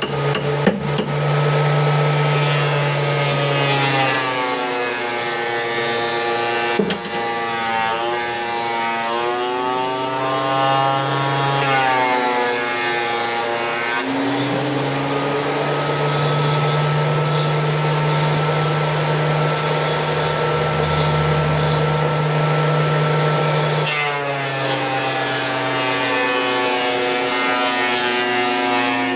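An electric woodworking power tool's motor running continuously, its pitch sagging and recovering several times, as a motor does when it slows under load.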